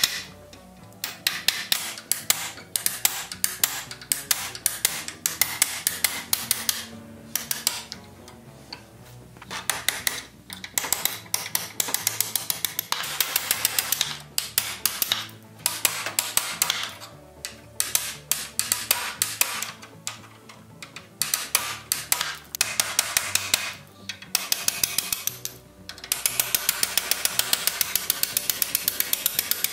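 Hammer striking a steel punch in quick runs of metal-on-metal blows, driving the old rusted bolts out of a sleigh runner's iron braces. Background music plays under the hammering.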